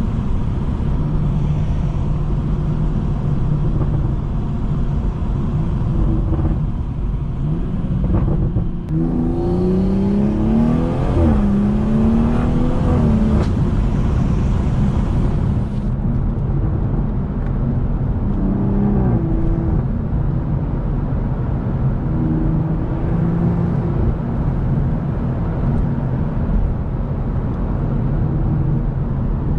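BMW M140i's 3.0-litre turbocharged straight-six running under way. Between about 9 and 14 seconds in it accelerates, its pitch rising and dropping back twice at upshifts, then settles into steady running again.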